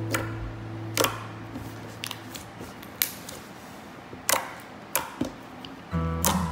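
Slime being pressed and squished by fingers, giving about half a dozen sharp, uneven pops and clicks as trapped air bursts out. Guitar music fades out at the start and comes back near the end.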